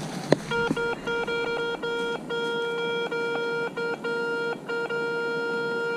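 Garrett ACE 250 metal detector beeping hard over a strong target: one steady electronic tone that keeps cutting out for a moment and coming straight back, with a single sharp click just before it starts.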